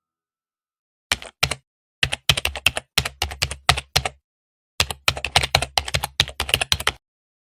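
Keyboard typing: a few single key clicks, then two quick runs of clicking with a short pause between them, against dead silence.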